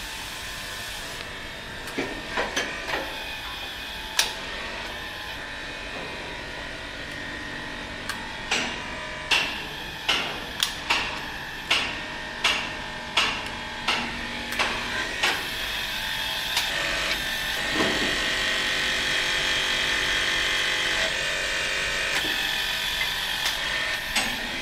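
HYTORC Avanti-10 hydraulic torque wrench tightening large M48 bolts, driven by its hydraulic pump, which runs steadily throughout. From about a third of the way in, sharp clicks come about one and a half times a second as the wrench cycles. The pump then drones on more steadily and a little louder, and a few more clicks come near the end.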